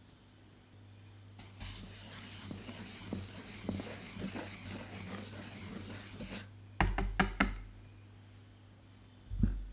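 Dry flour mixture being stirred in a wooden bowl: a soft scraping rustle with small ticks for about five seconds. Then come three sharp knocks in quick succession, and one more thump near the end.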